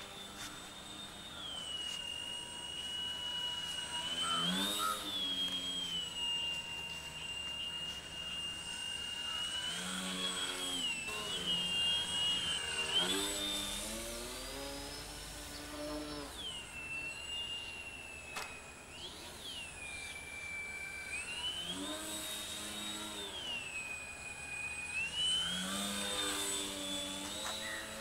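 Radio-controlled Lazy Bee model airplane in flight, its small motor and propeller buzzing with a high whine that steps up and down with the throttle. The buzz swells and bends in pitch several times as the plane passes close.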